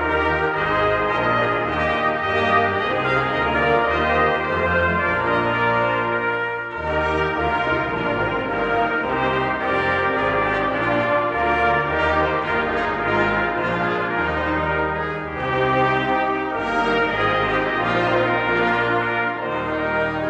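Brass choir of trumpets, trombones and tuba playing full sustained chords in a church, with a deep bass line moving under the held upper notes. The sound dips briefly twice, about a third and three quarters of the way through, as phrases end and the players breathe.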